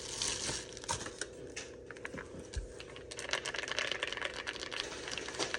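Keystrokes on a 'creamy' mechanical keyboard: a few separate presses, then fast continuous typing from about halfway in.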